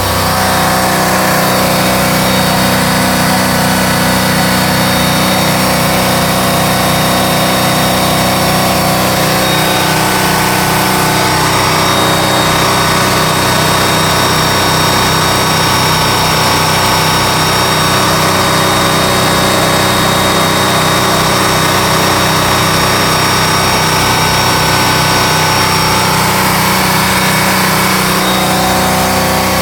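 Indmar-marinized GM 350 V8 inboard engine of a Mastercraft ski boat running steadily, with an even, rapid firing pulse. It runs without any audible miss, even though the ignition control module later proved to be failing.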